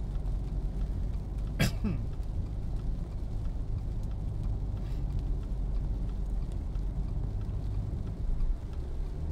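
Steady road noise of a car driving on a wet highway in rain, heard inside the cabin: a low rumble of tyres and engine with a hiss of spray and rain. One brief sharp click about a second and a half in.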